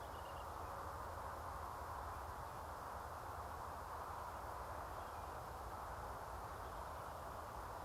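Steady, faint outdoor background hiss with no distinct calls or events.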